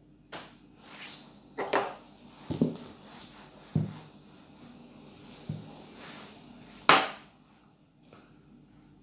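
Whiteboard being wiped clean with a hand eraser: a string of short rubbing swipes across the board, with a few low bumps of the board in between. The loudest swipe comes about seven seconds in.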